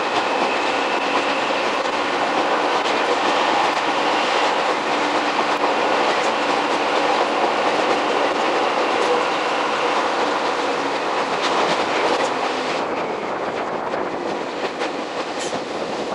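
Jōmō Electric Railway 700-series electric train (ex-Keio 3000 series) running along the line, heard from inside the car: steady wheel and rolling noise with clickety-clack over the rail joints. It grows somewhat quieter near the end.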